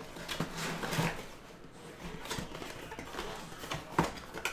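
Light handling noise from a cardboard box being opened and reached into: soft rustles and taps, with a sharper click about four seconds in.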